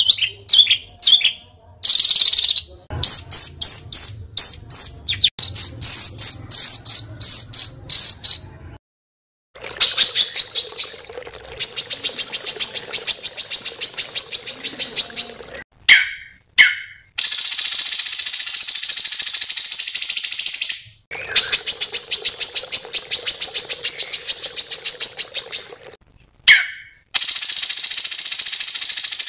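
Small songbirds giving dense, harsh, rapid high-pitched trills and chatter. The recording is spliced from short clips, each stopping abruptly, with brief silent gaps between them.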